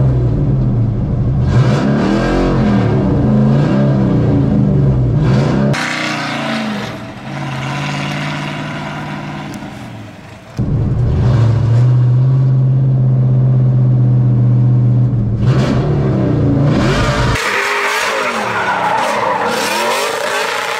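LS V8-swapped Nissan 350Z drift car's engine at high revs while drifting. The revs swing up and down, then hold steady for long stretches. The sound changes abruptly a few times as it cuts between takes.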